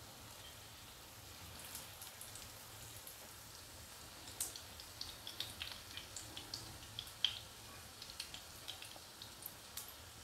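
Potato-coated scotch eggs shallow-frying in a pan of oil: a faint hiss with scattered small crackles and pops of hot oil, which come more often from about four seconds in.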